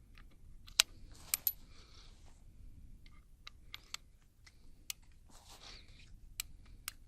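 Scattered sharp metallic clicks and clinks with some soft rustling, from .45 Colt cartridges and a Ruger Vaquero single-action revolver being handled while it is loaded. The loudest click comes about a second in, followed by a close pair.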